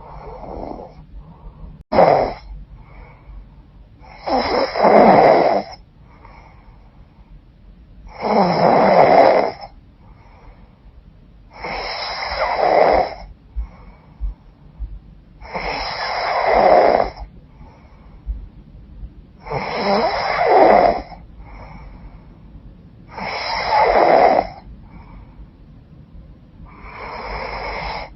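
A woman snoring in her sleep with a runny, blocked nose: a short sharp snore about two seconds in, then a loud, harsh snore roughly every four seconds, each lasting about a second and a half, with faint breaths between.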